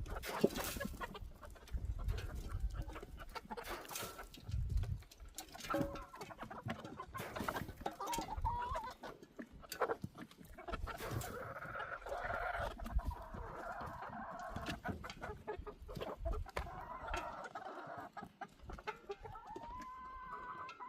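Chickens clucking and calling, with frequent knocks and clatter of handling mixed in; the calling is steadiest through the middle stretch.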